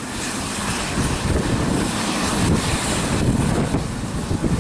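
Eurocopter EC135 P2+ helicopter running on the helipad with its main rotor turning, a steady loud turbine and rotor noise, with wind buffeting the microphone.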